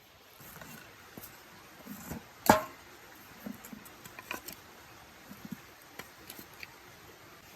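Scattered light clicks and rustles of things being handled, with one sharp, ringing knock about two and a half seconds in.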